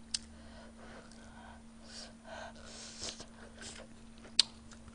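Soft breathing and quiet mouth sounds of someone eating tteokbokki close to a microphone: a few faint hissy puffs of breath, a faint steady hum underneath, and a single sharp click about four and a half seconds in.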